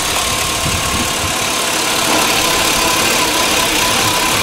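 Chevy Tahoe's Vortec V8 idling steadily, heard up close in the engine bay, breathing through a newly fitted open foam-filter cold air intake, with a thin steady whine over the engine noise.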